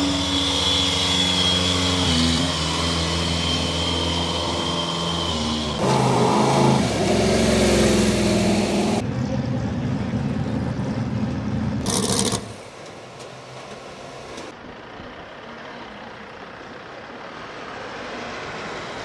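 Motor vehicle engine running close by with a high whine over it. The sound changes and grows noisier about six seconds in, then drops suddenly to quieter background about twelve seconds in.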